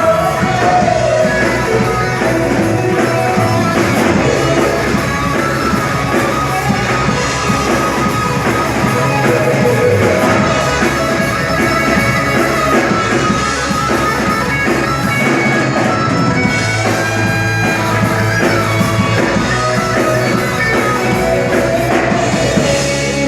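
A rock band playing live, loud and steady, with singing over the instruments.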